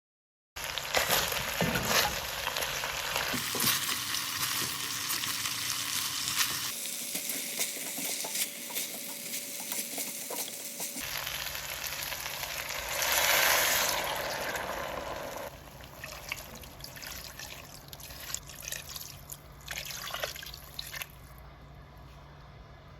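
Lamb chops and vegetables sizzling in a pot and being stirred, heard in several short clips that cut in and out abruptly.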